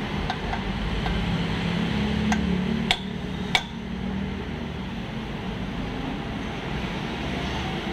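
A hammer tapping a socket used as a driver to seat a pilot bearing into the flywheel's centre: a few sharp metal knocks, the two loudest about three and three and a half seconds in, over a steady hum.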